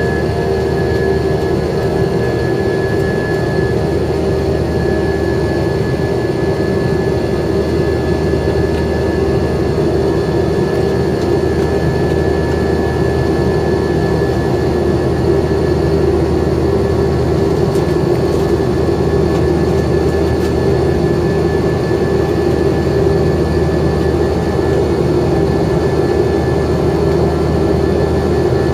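Jet engines and cabin of an Airbus A321 airliner climbing out after take-off, heard from a window seat beside the engine: a steady drone with a low rumble, a held mid-pitched hum and fainter high whines.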